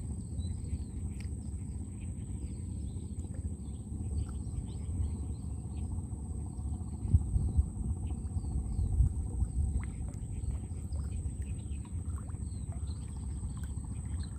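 Low, steady rumble of water and open air around a small wooden boat as a gillnet is hauled in by hand over the side, with a few small splashes. Birds chirp faintly and often in the background, and a thin, steady high-pitched tone runs throughout.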